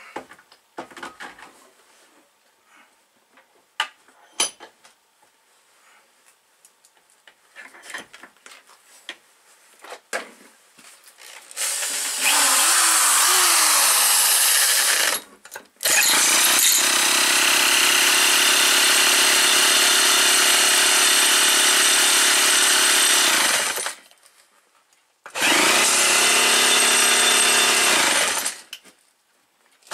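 A few seconds of scattered knocks and clicks from handling, then a corded electric drill running steadily in three long runs as it spins over the old McCulloch 250 chainsaw's two-stroke engine, each run stopping abruptly. The engine does not fire.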